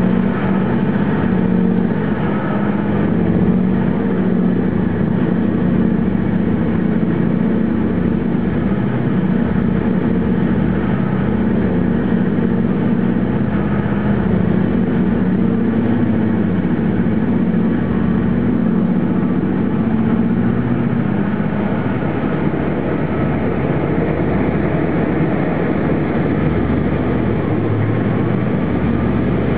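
Heavy diesel engines of a giant mining shovel and haul truck running steadily at work, a continuous deep drone that eases off slightly about two-thirds of the way through.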